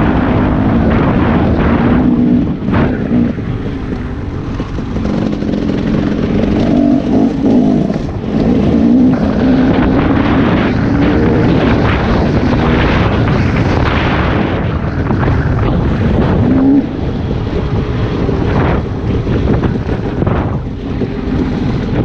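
Dirt bike engine running under throttle, its pitch rising and falling as the rider works the throttle, with wind noise on the helmet-mounted microphone.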